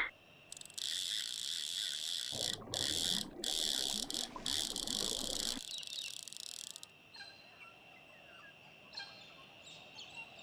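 Crickets chirring steadily, a garden-ambience effect, loudest over the first seven seconds with a few short breaks, then fainter. A lower noise sits under it from about two to five and a half seconds in.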